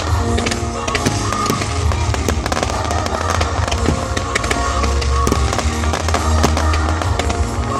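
Fireworks display: many sharp bangs and crackles in quick succession, over loud music with a heavy bass.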